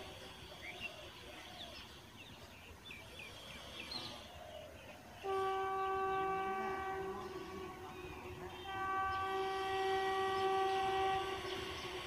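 Horn of a WAP-7 electric locomotive sounding two long blasts, the first starting about five seconds in and each lasting about two and a half seconds. Birds chirp faintly before the horn.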